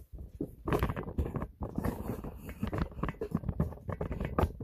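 Irregular knocking, rattling and scraping of sewing-machine parts being handled during disassembly. It stops abruptly at the end.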